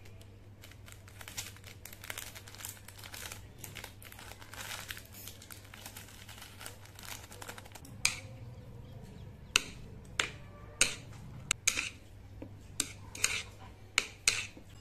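Instant noodles being mixed with sauce on a plate with metal chopsticks. For the first several seconds there is a crinkly, rustling noise. From about halfway through come around nine sharp clicks of the chopsticks striking the plate.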